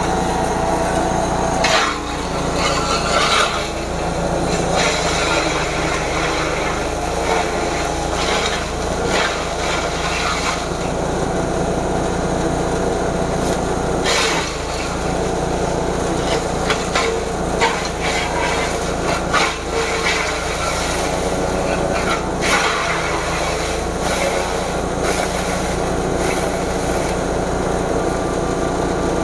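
Grass chopper machine running steadily while it cuts fresh forage, with irregular crackles and knocks as stalks are fed through its blades.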